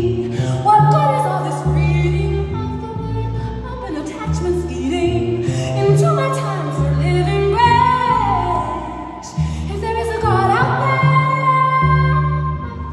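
A woman singing while playing the double bass. The bass holds low notes of about a second each under her gliding vocal line.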